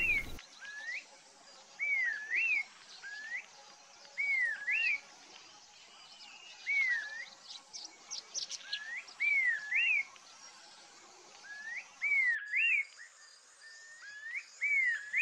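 Mount Victoria babax calling: short phrases of two or three whistled notes, each rising and falling, repeated every couple of seconds.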